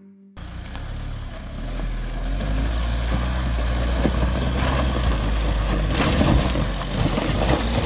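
A 2020 Mahindra Thar's engine running steadily under load as it crawls up a loose rocky slope, with a few brief crunches from the tyres on the stones. The sound cuts in abruptly just after the start.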